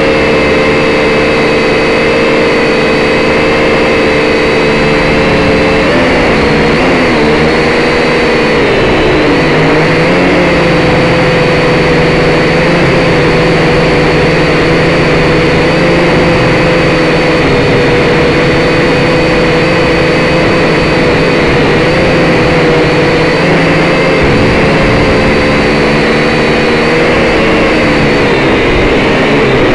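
Syma X5C quadcopter's small motors and propellers whining loudly and steadily, picked up by the drone's own onboard camera. The pitch dips and wavers as the throttle changes about six to ten seconds in, and shifts again near the end.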